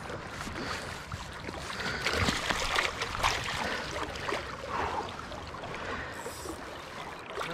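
Moving creek water splashing and swirling around a landing net as a hooked brown trout is brought in and netted, with louder splashes about two to three and a half seconds in.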